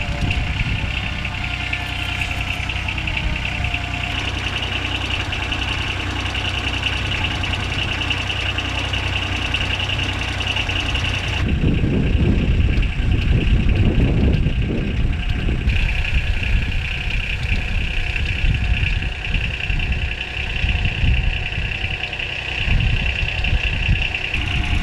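Engine of a Polaris MRZR utility vehicle carrying the L-MADIS counter-drone system, idling steadily with a constant high whine over it. From about 11 seconds in, a louder, uneven low rumble joins it.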